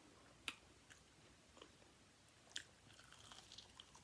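Faint close-up mouth sounds of a person chewing crispy fried chicken wings. There are two sharper crunches, about half a second in and about two and a half seconds in, then a run of small clicks near the end.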